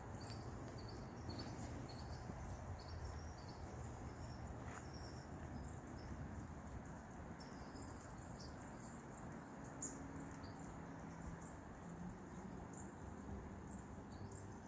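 Quiet outdoor backyard ambience: a steady low background rumble with scattered short, high chirps.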